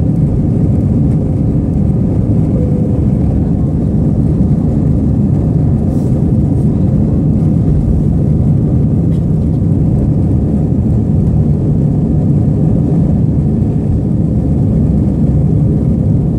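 Airbus A320 airliner's engine and airflow noise heard inside the passenger cabin during the climb after takeoff: a loud, steady low rumble that holds even throughout.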